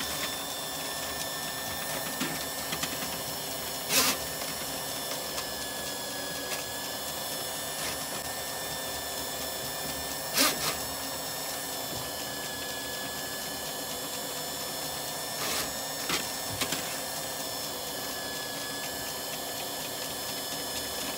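Electric flexi-rodder drain-cleaning machine running steadily, spinning its 8 mm wire cable with a small drop head inside a clogged kitchen floor drain to clear the blockage. A few sharp knocks stand out over the steady running.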